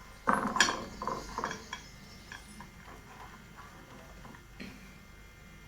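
Thick gram-flour and rice-flour batter being stirred in a bowl: a run of knocks and scrapes begins about a third of a second in and lasts about a second and a half, then scattered soft clicks follow.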